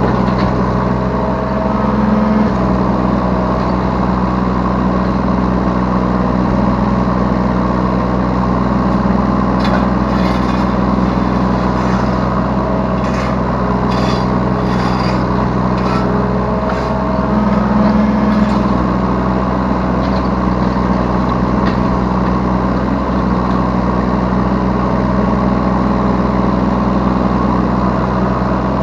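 Yanmar B3 Sigma 3-tonne mini excavator's diesel engine running steadily under hydraulic load, heard from the operator's seat, its pitch rising briefly a couple of seconds in and again near the middle as the controls are worked. From about ten to sixteen seconds in there is a run of clanks and scrapes.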